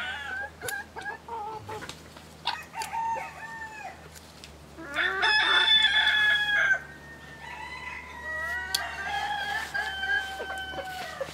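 Rooster crowing: a loud crow held for nearly two seconds about halfway through, and another long, quieter crow near the end, with shorter clucking calls before them.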